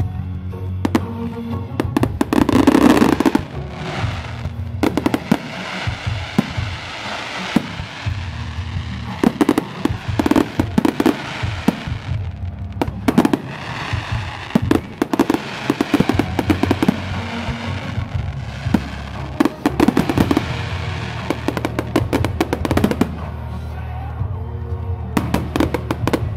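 Fireworks going off in rapid clusters of bangs and crackles over loud show music with a steady bass, the loudest burst coming about three seconds in.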